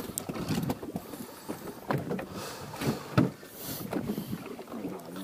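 Sounds aboard a small fishing boat at sea: water sloshing against the hull in short washes, with scattered knocks and clunks on the boat.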